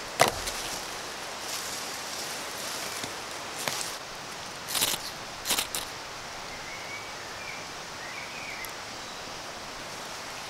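Armful of firewood dropped onto leaf litter with a single loud thud just after the start, then a few short, sharp scrapes of a knife blade working at tinder on the ground to get it alight. A faint bird chirps later over a steady background hiss.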